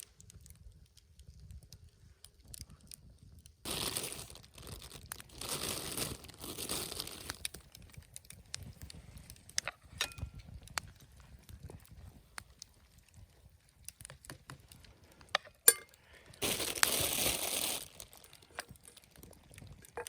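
Crinkling and rustling, like something crisp being handled, in two spells: a longer one a few seconds in and a shorter one near the end, with small scattered clicks between them.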